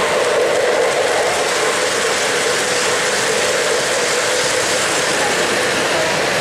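O-gauge model trains rolling on three-rail track, a steady clatter and rumble of wheels on the rails.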